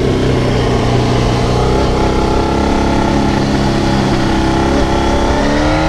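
1993 Honda CBR900RR Fireblade's inline-four engine pulling at steady revs while the bike is ridden. Near the end the revs begin to climb as the throttle opens.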